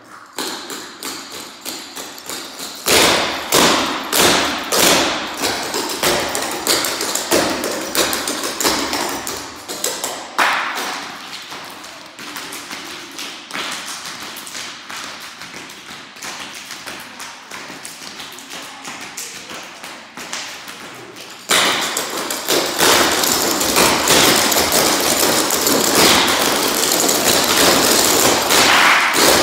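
A group of dancers' shoes striking a hard floor in unison with sharp, rhythmic taps and stamps, danced without music. About 21 seconds in the footwork turns louder and denser, into a near-continuous clatter.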